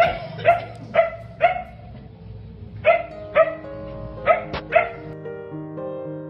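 A dog barking eight times in short runs, about two barks a second, over soft background music; the barking stops about five seconds in and the music carries on alone.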